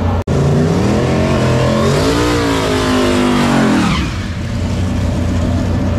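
Drag-racing car accelerating hard down the strip past the camera, its engine note climbing, then dropping sharply as it goes by about four seconds in.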